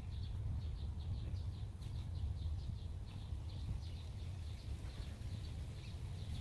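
A small bird chirping over and over, short high chirps several a second, over a low steady rumble.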